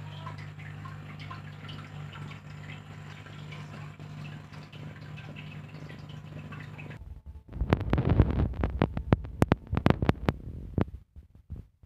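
A steady low hum for about seven seconds, then a loud stretch of rustling and scraping with many sharp clicks lasting about four seconds, cutting off just before the end.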